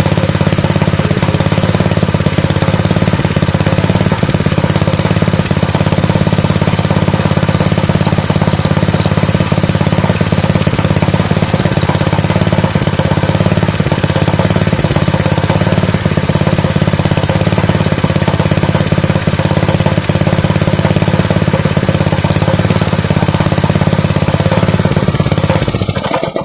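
Fujihama 7 HP single-cylinder petrol engine running steadily, freshly repaired after a carburettor cleaning and a fuel change, and now running properly. It cuts off suddenly near the end.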